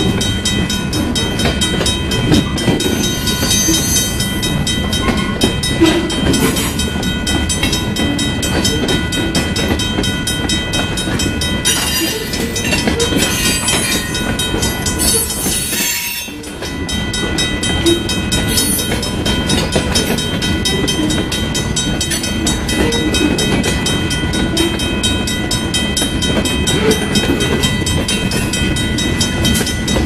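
Freight cars rolling past at speed, mostly covered hoppers: steel wheels rumble and clack over the rail joints and the crossing, with a brief lull a little past halfway as a gap between cars goes by.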